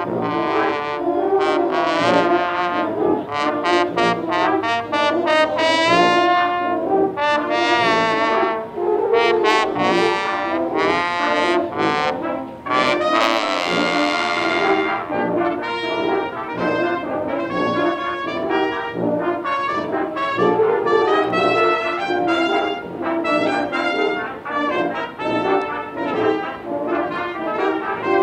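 Concert wind band playing, with brass to the fore: trumpets, trombones and horns over saxophones and low brass. The music runs without a break and swells to a fuller, louder passage about halfway through.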